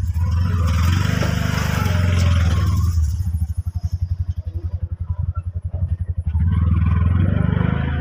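Auto-rickshaw's single-cylinder engine running, heard from inside the passenger compartment with road and wind hiss. About three seconds in it drops to a slower, more distinct chugging, and about six seconds in it picks up again.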